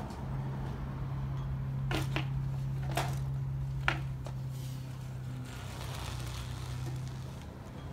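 Mountain bike riding along a narrow wooden beam: a few sharp clicks and knocks from the bike and tyres on the wood about two to four seconds in, then a soft hiss of tyres rolling past close by.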